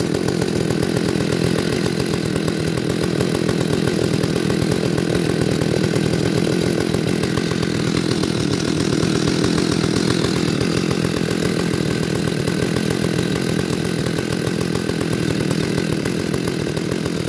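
Two-stroke chainsaw engine running steadily at an even speed, without revving.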